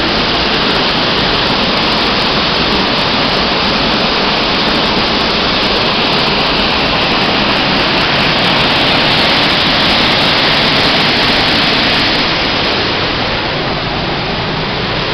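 Waterfall: falling water rushing as a loud, steady noise that swells slightly about halfway through and eases again near the end.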